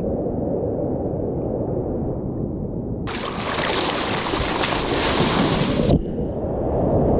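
Sea water churning and splashing around a surfboard, heard muffled from the water line. About three seconds in, it suddenly opens into loud splashing and spray as the board's nose cuts through the water, then drops back to the muffled sound about three seconds later.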